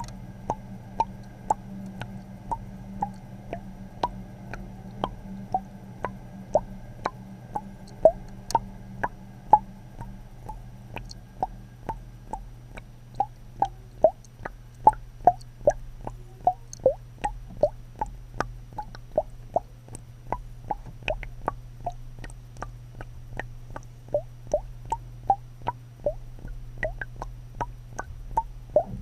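Water dripping or bubbling: plopping drops, about two a second and uneven in loudness, over a steady low hum.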